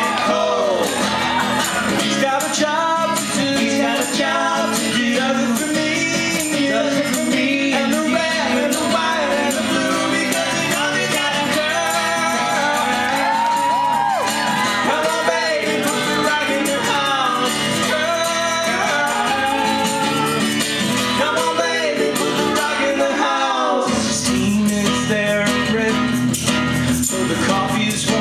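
Live song performance: men singing together over a strummed acoustic guitar.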